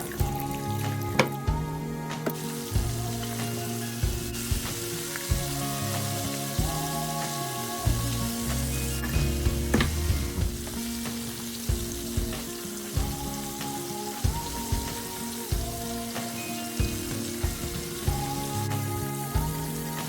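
Food frying in hot oil in a pan, a steady sizzle with a few sharp clicks, under background music.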